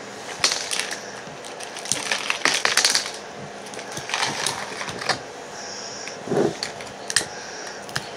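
Cooked Dungeness crab shell cracking and crunching as it is pulled apart by hand, in irregular bursts of snaps and clicks, loudest about two to three seconds in.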